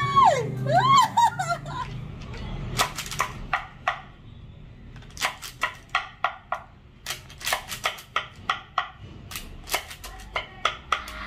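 A voice slides and drops in pitch in the first second, followed by a long run of sharp clicks and taps at uneven intervals.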